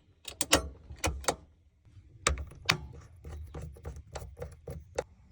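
An irregular series of sharp mechanical clicks and knocks, about fifteen in five seconds, over a low steady rumble.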